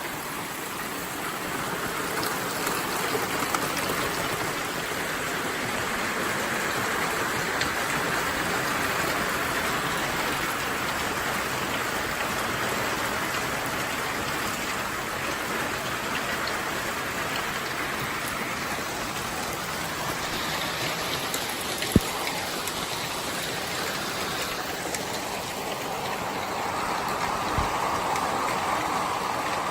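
Steady rain falling, an even hiss with no let-up, broken by one sharp tap about three-quarters of the way through.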